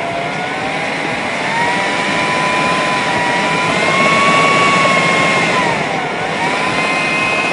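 Electric food processor running, its blade working tart dough of flour and butter. The motor whine holds steady, sags in pitch about six seconds in, then picks up again.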